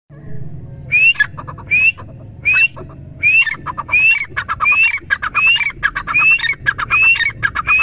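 Grey francolin calling: a loud phrase, a rising whistled note followed by a quick run of short notes, repeated about ten times, roughly once every three-quarters of a second, starting about a second in.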